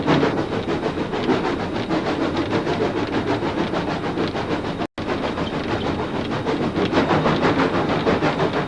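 Steam locomotive working hard up a steep grade with a rapid, even beat of exhaust chuffs. The engine is labouring as the gradient slows the train. The sound cuts out for an instant about five seconds in.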